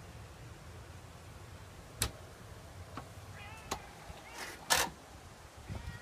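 Faint mewing from a cat, with a sharp click about two seconds in, another shortly after, and a short rustling burst a little later.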